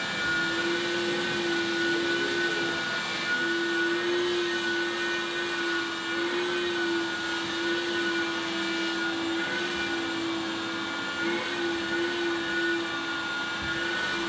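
Steady whine and rushing hum of a running electric motor, holding one pitch throughout.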